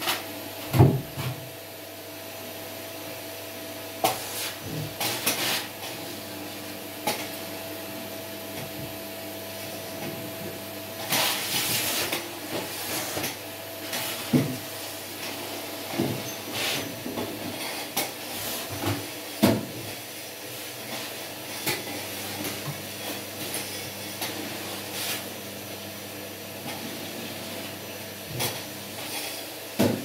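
Canister vacuum cleaner running steadily, with scattered knocks and clatters throughout.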